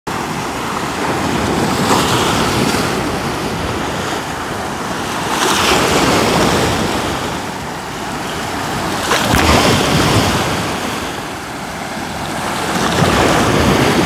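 Sea of Azov waves washing onto the shore, the surf swelling and easing four times, with wind on the microphone.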